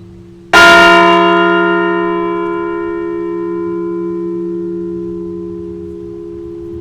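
A large memorial bell struck once about half a second in, then ringing and slowly fading. It is the single toll for the veteran whose name was just read. The low hum of the previous toll carries on underneath.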